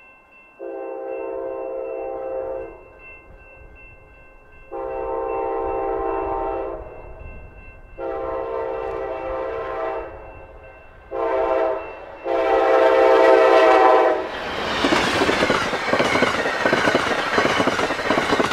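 Amtrak GE P42DC diesel locomotive horn sounding the grade-crossing signal, long, long, short, long, as the train approaches. The train then passes at speed with a loud rush of wheel and rail noise.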